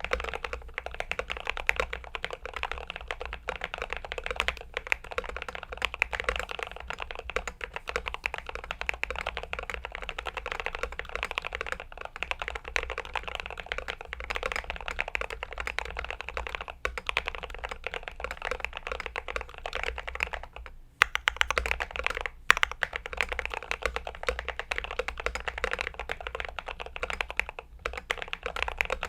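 Continuous fast typing on a Glorious GMMK Pro mechanical keyboard, a dense run of keystrokes. About two-thirds of the way through there is a brief pause, followed by a couple of louder single strokes.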